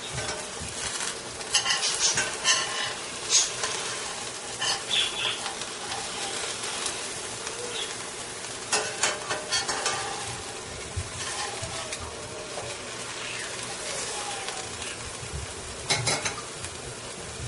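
Grated-apple and egg pancake sizzling steadily in oil in a stainless steel frying pan. A spatula scrapes and clicks against the pan in short clusters: about two seconds in, around nine seconds, and once more near the end.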